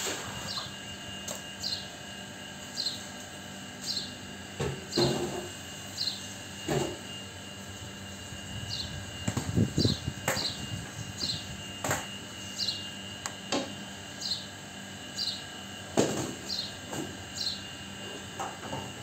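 A short, high, falling chirp repeated about once a second, typical of a bird calling, with several knocks and clunks as things are moved about on a tiled floor, the loudest clatter about ten seconds in.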